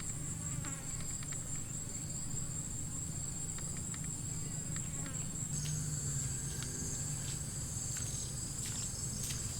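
Steady high-pitched chorus of insects in the surrounding forest, growing a little louder about halfway through, over a low rumble, with scattered faint clicks.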